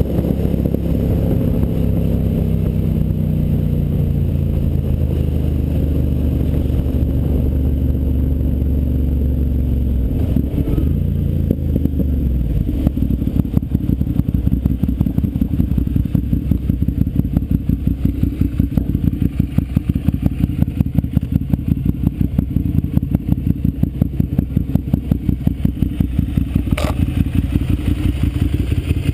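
Ducati Monster's L-twin engine: its pitch falls as the bike slows over the first ten seconds or so, then it runs at idle with a steady pulsing beat. A single sharp click near the end.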